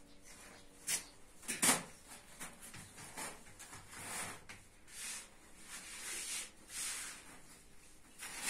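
Baked tandoor flatbread scraping and rustling as it is pulled from the oven and laid on a stack, in a series of short dry swishes, with two sharper scrapes about a second in.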